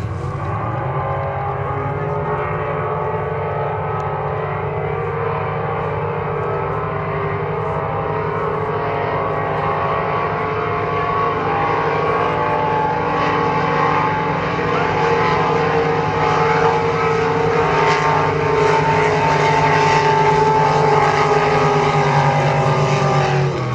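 Racing motorboat engines running at full throttle, several overlapping with a steady multi-toned drone that grows louder as the boats come closer, loudest near the end.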